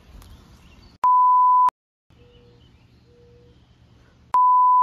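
Two loud, steady 1 kHz censor bleeps, each about two-thirds of a second long and about three seconds apart, cut in with dead silence around them. Between them is only faint outdoor background.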